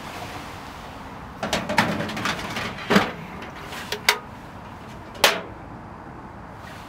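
Hands working at a kerosene fan heater's side and fuel compartment. There is a run of clatter, then several separate sharp clicks about three, four and five seconds in, over a low steady hiss.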